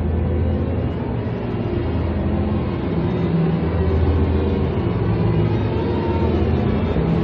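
Film-score music with low, sustained held notes that shift in pitch every second or two.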